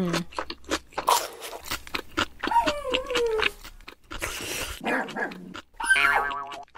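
Dog sound effects: a falling whine a few seconds in and a rougher, pulsing bark-like call near the end, over scattered sharp clicks and crunches.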